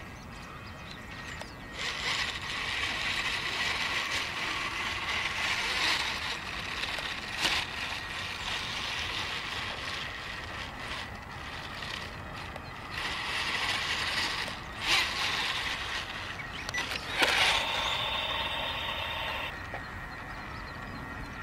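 Electric motor and gearbox of an HC-801 RC stunt motorcycle whirring as the toy drives, swelling and easing in stretches as it speeds up and slows down, with a few sharp clicks.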